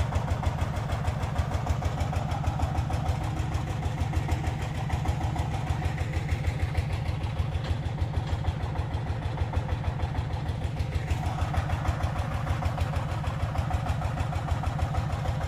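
Single-cylinder diesel engine of a Vietnamese công nông two-wheel-tractor cart running steadily, a rapid even beat of firing strokes with no change in speed.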